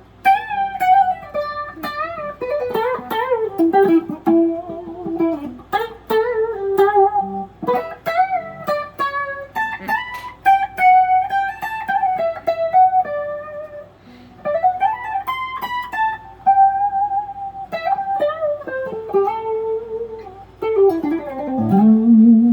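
Kiesel Crescent electric guitar with Kiesel Polarity active pickups, played clean through an amp profile of a Vox AC30: melodic single-note lines with string bends and vibrato, ending on lower sliding notes.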